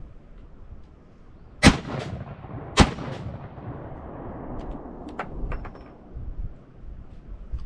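10-gauge double-barrel black powder shotgun fired twice, about a second apart, each loud shot trailing off in a rolling echo. A few light clicks follow a few seconds later.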